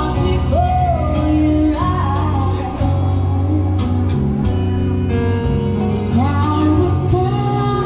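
Loud music with a singer's voice carrying the melody over a steady, heavy bass line.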